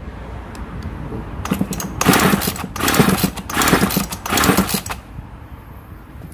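Kanto TCS 3800 two-stroke chainsaw being pull-started: about four quick, rough pulls of the recoil starter turn the engine over, but it does not catch. The owner takes this for a carburettor fuel needle still set too lean, with too little fuel reaching the engine.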